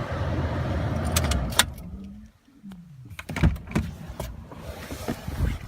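A steady low rumble that cuts off about a second and a half in, then a string of sharp clicks and knocks, as of latches or lids being worked in a pickup truck's cabin.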